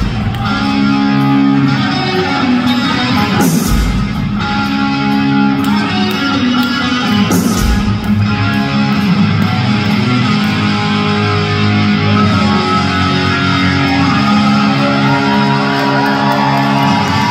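A live hard rock band playing loud, led by distorted electric guitar with bass and drums, heard from the audience. Two loud crashes hit about four and eight seconds in.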